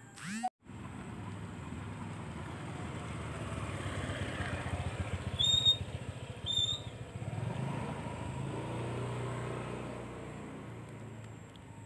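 A motor vehicle passing along the road, its engine rumble swelling and fading over several seconds. Two short high beeps about a second apart sound in the middle and are the loudest sounds.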